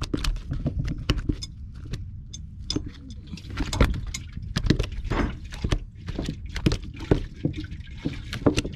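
A freshly landed fish flopping on a wooden boat deck, its body slapping the planks in irregular wet knocks, over a steady low rumble.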